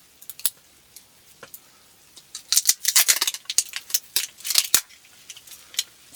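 Cookware and utensils handling food: sharp clicks and two quick clusters of scraping or snipping strokes, about two and a half and four and a half seconds in.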